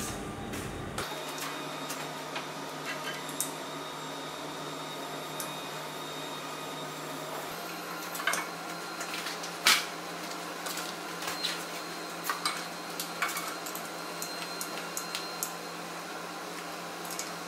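Light clicks and knocks of a terminal reel being handled and fitted onto a crimping machine's reel holder, scattered through, over a steady low hum; the sharpest knock comes about ten seconds in.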